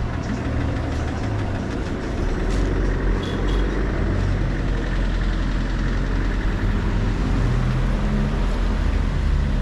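Street traffic: a motor vehicle engine running steadily, with road noise.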